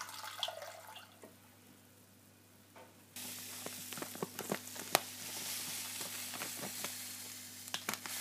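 Granulated sugar poured from a bag into a plastic measuring jug on a digital scale: a steady hiss of falling grains with scattered clicks, starting suddenly about three seconds in after a quiet stretch.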